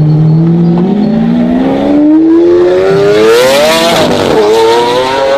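Race car engine accelerating hard, its pitch climbing steadily. The pitch dips briefly about four seconds in and then climbs again.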